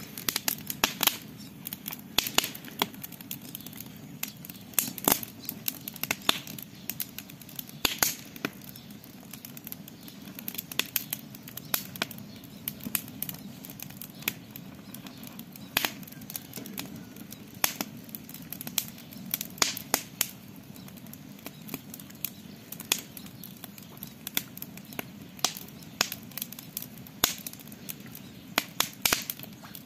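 Campfire crackling, with irregular sharp pops and snaps of burning wood over a steady low bed of fire noise.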